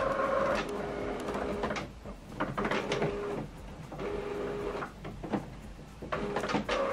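HP OfficeJet Pro 8135e inkjet printer's motors running in several short spells of about a second each, with clicks between them. The printer is preparing and starting to print the printhead alignment page.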